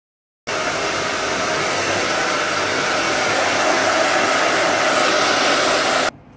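Handheld hair dryer blowing steadily on damp hair. It comes in abruptly about half a second in and cuts off suddenly just before the end.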